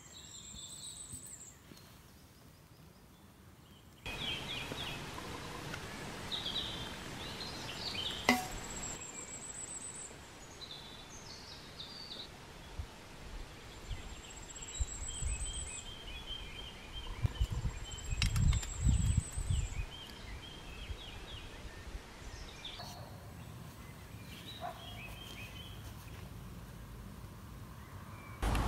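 Small birds singing in woodland: repeated short, high, falling trills and chirps over a soft outdoor background. There is one sharp knock about eight seconds in, and some low thuds and handling noise around eighteen to twenty seconds in.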